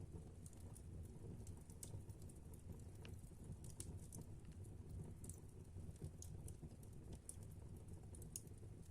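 Faint, irregular crackling and popping of a wood fire in a fireplace, over a low hum.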